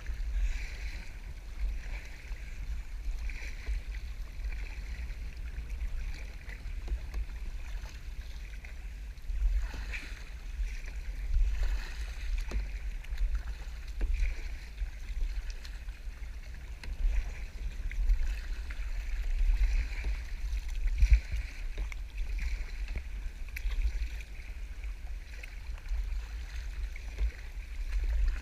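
A sea kayak being paddled: water splashing and lapping at the paddles and hull in uneven surges, over a steady low rumble of wind on the microphone.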